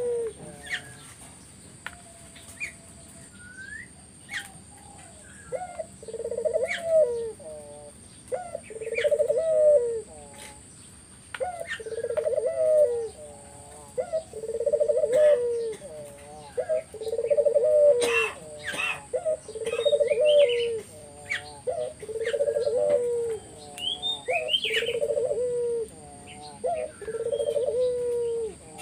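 A puter (ringneck or Barbary dove) cooing vigorously: a rolling trilled coo ending in a falling note, repeated about every two to three seconds. Small birds chirp in the background.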